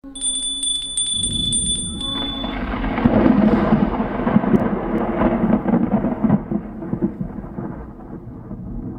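Rolling thunder with rain, a logo sound effect: a broad rumble that swells from about a second in and slowly fades away. It opens abruptly with a high steady whine and crackling clicks that stop after about two seconds.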